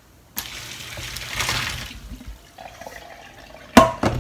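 Boiling water poured from an aluminium saucepan through a plastic colander into a stainless steel sink, a splashing pour that swells and fades over about two seconds. Near the end the metal pot clanks down twice on the steel sink.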